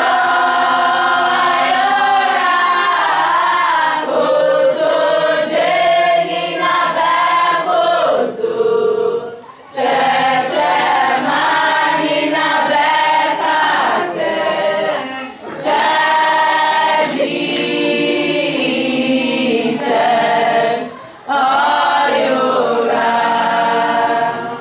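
A group of students singing a song together, unaccompanied, phrase after phrase, with short breaks between phrases three times.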